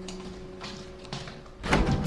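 An acoustic guitar chord from background music rings out and fades. It is followed near the end by a short, loud noisy thump.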